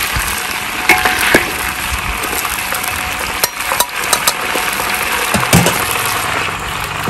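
Chicken pieces sizzling in hot oil in a metal wok, while a perforated metal skimmer clinks and scrapes against the wok several times as it scoops the pieces out.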